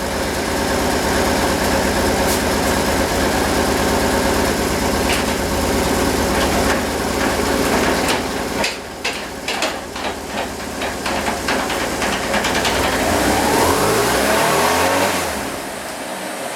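BMW R1150RT motorcycle transmission turning with the engine not running, grinding and rattling loudly from bad transmission bearings. A steady rough racket gives way to irregular knocking and clicking, then a rising whine climbs for a couple of seconds before the noise drops away near the end.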